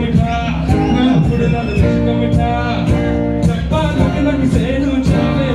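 Male vocalist singing live into a microphone over loud amplified dance music with a steady beat, about two beats a second.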